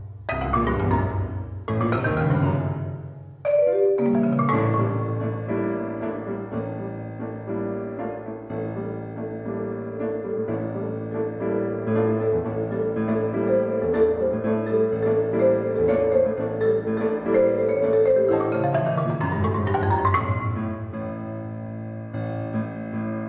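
Marimba and Steinway grand piano playing together: fast sweeping runs of struck notes over the first few seconds, then a sustained, ringing chordal passage that thins out and quietens near the end.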